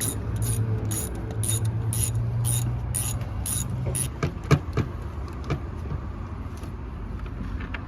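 Hand ratchet working engine bolts, clicking in even strokes about two a second, then stopping about four seconds in, followed by a few tool clinks. A steady low hum runs under the first half.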